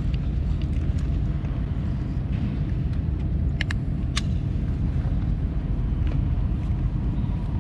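Steady low outdoor rumble, with a few sharp clicks from small plastic bottles being handled and capped about three and a half and four seconds in.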